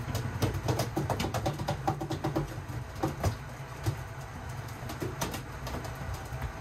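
Fishing boat's engine rumbling low and steady under a rapid, uneven run of sharp clicks and knocks. The clicks are densest in the first few seconds and thin out after.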